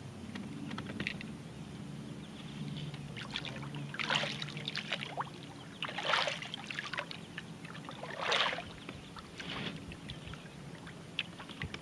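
Water splashing and swishing beside a canoe as a bare foot is dipped and kicked in it, three louder splashes about four, six and eight seconds in. A low steady hum, from the small electric trolling motor, runs under the first half and then fades.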